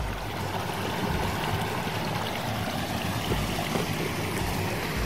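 Shallow stream water running steadily, an even rushing and trickling.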